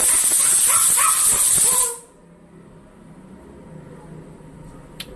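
Pressure cooker venting steam with a loud, high hiss that cuts off suddenly about two seconds in.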